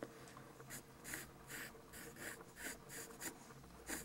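Pencil sketching on paper: a series of short, faint scratching strokes, about two to three a second, starting about a second in.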